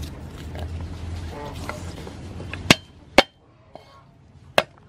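Cleaver chopping garlic cloves on a wooden chopping board: three sharp chops, the first about halfway through, the second half a second later, the third near the end. Before the chops, a low steady hum.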